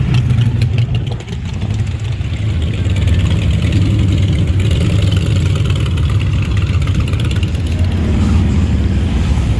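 Motorcycle engines running with a steady, loud, deep rumble.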